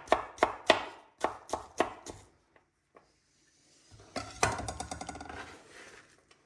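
Chef's knife slicing an onion on a wooden cutting board: a run of sharp knocks, about three a second, for the first two seconds. After a short pause comes rubbing and rustling as the onion is handled and peeled.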